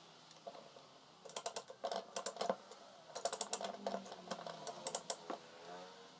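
Quick runs of small, sharp clicks in two bursts, like rapid tapping, with a faint ringing under some of them.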